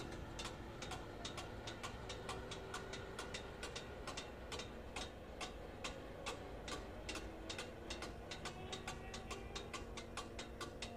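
Electric level-crossing warning bell striking rapidly and evenly, about four strokes a second, each stroke leaving a short ringing tone. It keeps ringing while the barrier arms rise as the crossing reopens.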